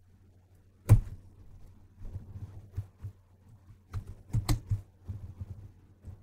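Computer keyboard being typed on: irregular single keystrokes with a sharp loud one about a second in and a quick cluster around four to five seconds, over a faint steady low hum.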